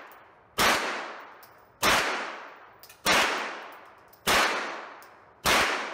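AK-47 rifle fired in single shots: five shots about a second and a quarter apart, each with a long echo off the walls of an indoor shooting range.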